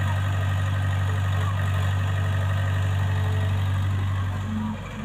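Diesel engines of a Mahindra Arjun 605 tractor and a loading excavator idling with a steady low hum. The hum dips briefly near the end.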